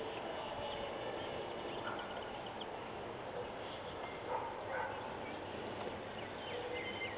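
Steady outdoor hiss with a few faint, short high chirps, two of them a little louder about four and a half seconds in.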